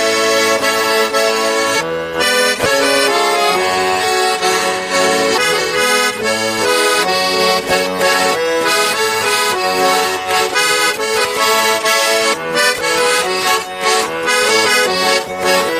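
Accordion playing a lively folk tune, instrumental without singing.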